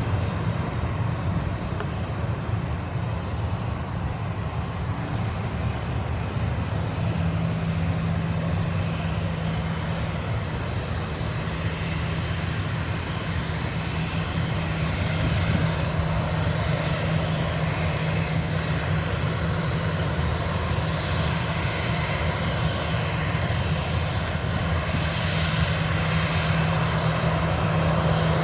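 Boeing 737-800's CFM56-7B turbofan engines running with a steady low hum and a whine, just after takeoff clearance. The engine noise grows louder and brighter over the second half as thrust builds for takeoff.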